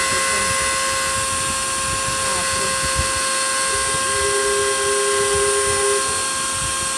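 Small CNC router spindle whining steadily as its engraving bit mills copper-clad PCB board, with a constant high hiss of cutting. A lower tone joins for about two seconds past the middle.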